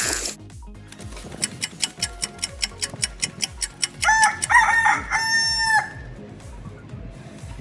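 A run of quick, even clock-like ticks, then about four seconds in a rooster crowing, a few short broken notes and one long held note, over a faint music beat.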